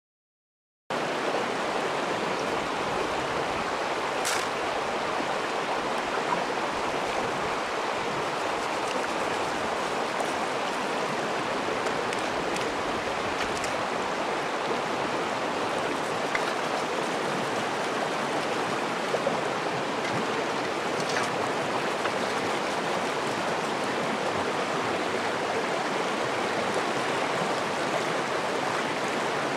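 Shallow rocky stream rushing steadily, cutting in suddenly about a second in after silence, with a few faint clicks.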